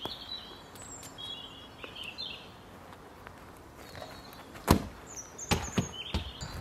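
Garden birds chirping, then about two-thirds of the way through one sharp, loud thud of a football being kicked, followed by a few softer steps on grass.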